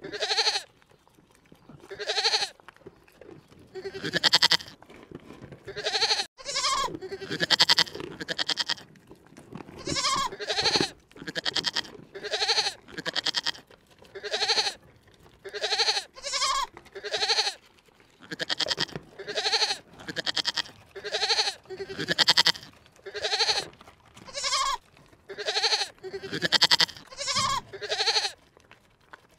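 Livestock bleating over and over, about twenty short pitched calls in steady succession with brief gaps between them.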